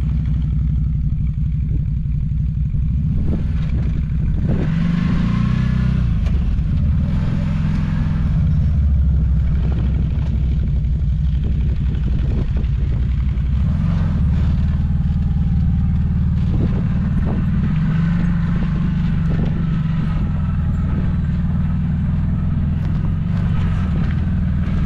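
CF Moto side-by-side buggy being driven: its engine runs steadily under the body's rattles, with scattered knocks.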